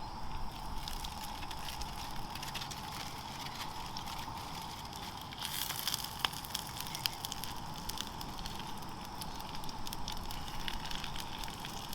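Small fire crackling, with irregular sharp pops and snaps over a steady faint hiss.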